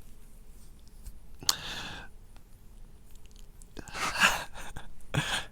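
A man's heavy breathing close to the microphone: three noisy breaths, about a second and a half, four and five seconds in, the loudest near four seconds, with a sharp click at the start of the first.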